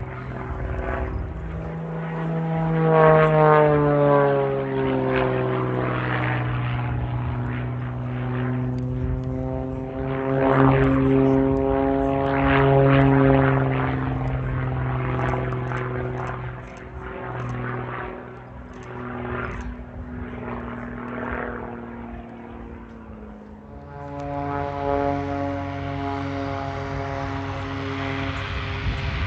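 Pitts S-2B aerobatic biplane in flight: the drone of its six-cylinder Lycoming engine and propeller, its pitch sliding down and back up as the aircraft swoops through manoeuvres, swelling louder twice. Near the end the note jumps abruptly to a steadier, brighter drone.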